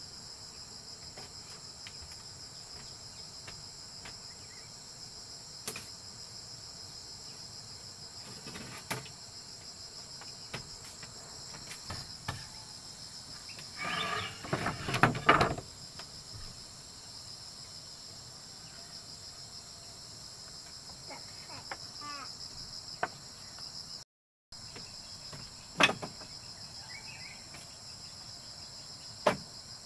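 A steady, high-pitched chorus of insects chirring, with scattered short knocks and clicks and a louder cluster of knocking and rustling about halfway through. The sound cuts out briefly about four-fifths of the way in.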